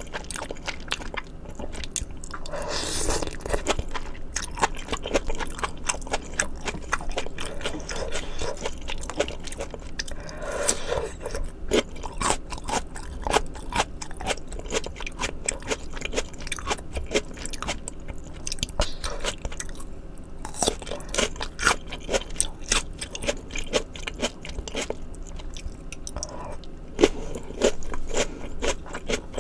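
Close-miked ASMR eating of spicy maratang: a person biting and chewing, with crunching and many sharp wet mouth clicks, and a few longer, louder noisy stretches along the way.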